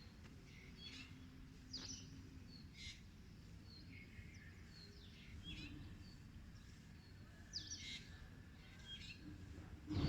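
Birds chirping faintly: short, scattered chirps every second or so over a low, steady background rumble.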